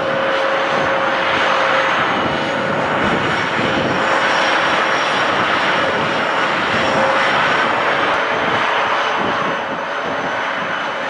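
Heavy hydraulic demolition shear machine running steadily under load, a continuous mechanical din with a steady whining tone through it. It eases off slightly near the end.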